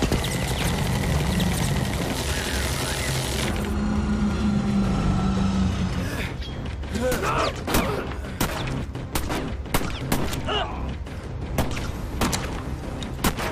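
Action-film battle sound effects: a dense rushing blast and debris noise with a low drone for the first few seconds, then a string of sharp cracks and impacts, with short cries.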